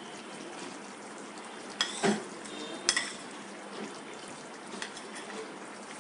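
Small-fish curry simmering in a metal pot, with a steady bubbling hiss. A metal ladle knocks against the pot a few times; the two sharpest knocks come about two and three seconds in.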